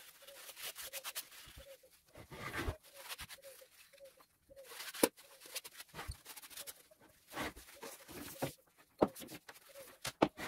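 A cloth rubbing and wiping over a bench grinder's water-stone wheel and metal housing, in short scrubbing strokes, with sharp handling knocks and clicks, the loudest about halfway through. Underneath, a faint short note repeats about three times a second.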